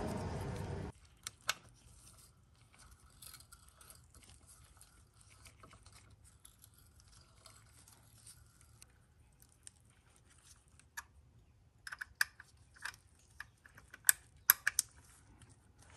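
Scattered sharp metallic clicks and taps of an Allen key working the M8 bolts on a billet aluminium transmission mount insert, with a cluster of louder clicks in the last few seconds as the bolts are tightened to torque. A steady rushing noise cuts off abruptly about a second in.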